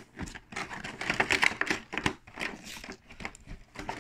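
Packaging crinkling and rustling as a tray of loose die-cast toy cars is taken out and handled: a dense run of irregular crackles.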